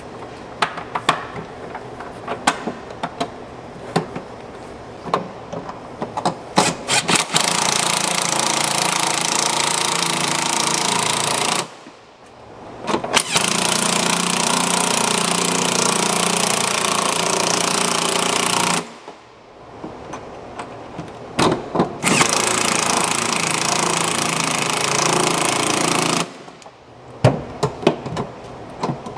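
Power driver running in the clutch cover fasteners in three runs of several seconds each, after some seconds of small clicks and knocks from handling the bolts and tool.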